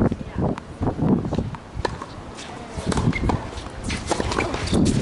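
A tennis ball bounced on a hard court ahead of a serve, followed by the racket striking the ball on the serve about four seconds in, over an uneven low rumbling.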